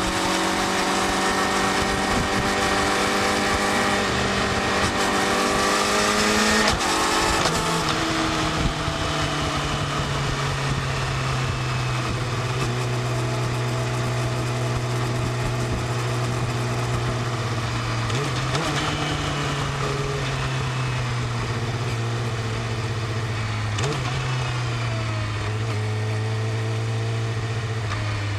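Yamaha YZF-R6 inline-four engine on its stock exhaust, running under way: it holds steady revs that creep up, drops in pitch at a gear change about seven seconds in, then slowly falls in revs with two brief blips, over a steady rushing noise.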